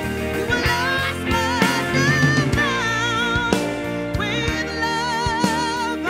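A live soul-rock band playing: a woman sings lead, holding notes with vibrato, over electric guitar, bass guitar and a drum kit.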